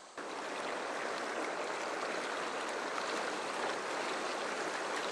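Fast-flowing river rushing through whitewater riffles, a steady wash of moving water that cuts in abruptly just after the start.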